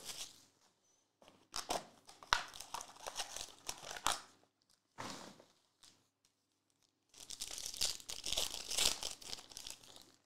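Foil-wrapped trading card packs being crinkled and torn open by hand: several bursts of crackling with short pauses between them.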